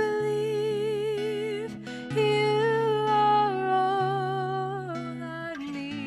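Contemporary worship band music: sustained chords under a slow, wordless melody line with vibrato that changes note every second or so.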